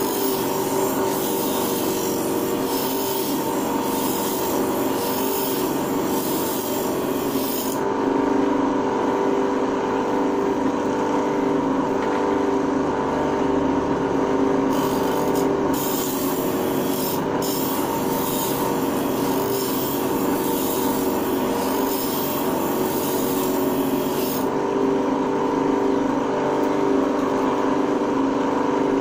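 Motor-driven grinding wheel running with a steady hum while a planer blade is held against it and sharpened, the grinding giving a hissing scrape. The scrape runs for the first eight seconds or so, stops for several seconds while the wheel spins free, returns briefly twice, then runs again until shortly before the end.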